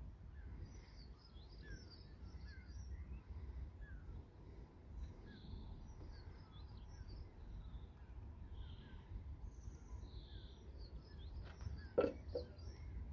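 Many small, high chirps and twitters keep coming, over a steady low rumble. About twelve seconds in there is a single sharp knock.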